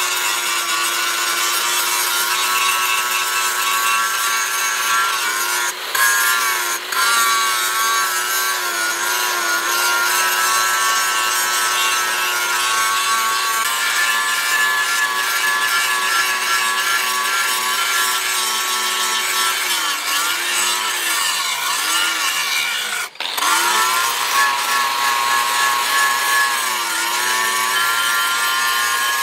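Angle grinder with an abrasive disc grinding a rusty steel axe head, running steadily with a high whine over the rasp of the disc on the metal. The motor's pitch dips briefly now and then as the disc is pressed harder into the steel, and the sound breaks off for an instant about three-quarters of the way through.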